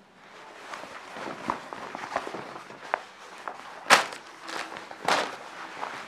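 Chino trousers being handled and turned over, the fabric rustling and rubbing under the hands with scattered small ticks. A sharp crack of fabric about four seconds in is the loudest sound, followed by another strong rustle about a second later.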